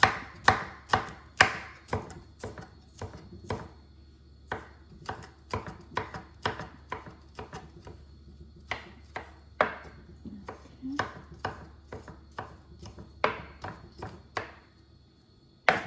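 Kitchen knife dicing garlic on a cutting board: a run of sharp, irregular knife strikes, roughly two a second, with a short pause partway through.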